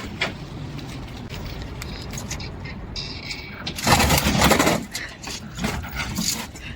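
Homemade electric four-wheel-drive off-roader driving over rough ground: tyre and ground noise with irregular rattles and knocks from the vehicle, and a louder surge of noise about four seconds in.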